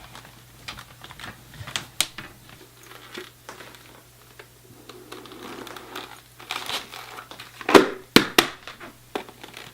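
Crinkling and rustling with scattered clicks over a steady low hum, and a few louder knocks about eight seconds in.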